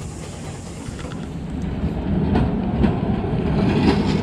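Heritage tram running along street rails, its low rumble growing louder as it comes close, with the wheels clicking sharply on the track several times in the second half.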